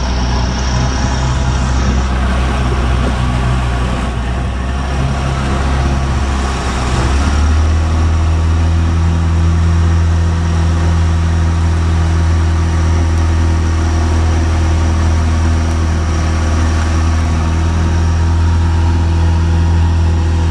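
Motorboat engine running under way, a steady engine note over a rush of noise; about seven seconds in the note steps up and grows a little louder as the boat speeds up.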